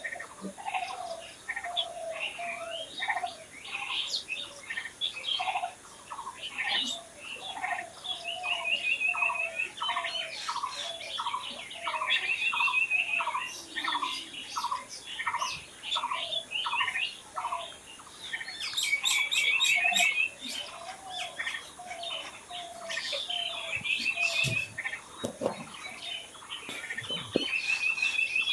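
Several birds chirping and singing at once in overlapping short calls, with one bird repeating a quick trill every few seconds.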